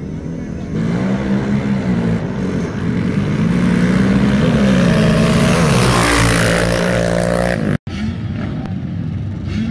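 Two racing ATV engines at full throttle in a drag race, revving up and dropping back several times as they shift through the gears, and growing louder. About eight seconds in the sound breaks off abruptly, and quieter engine noise follows.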